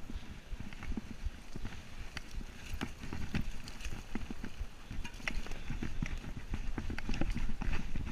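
Mountain bike rattling down a rough dirt singletrack: tyres on the dirt, with frequent irregular knocks and clatters from the bike over bumps and a steady low rumble beneath.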